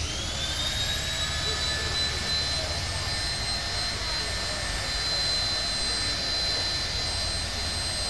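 Steam-engine-driven sawmill blade spinning free with a steady high whine, which slides up in pitch in the first second and then holds, over a low rumble from the belt-driven mill.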